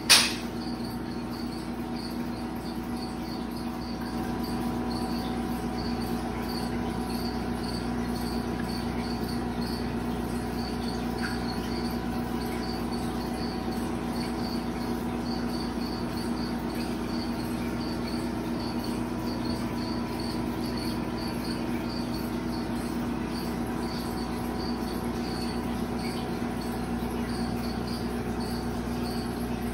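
Steady hum of running aquarium equipment, several fixed tones over a low rumble, with a high chirping pulse repeating a few times a second. A brief sharp knock at the very start.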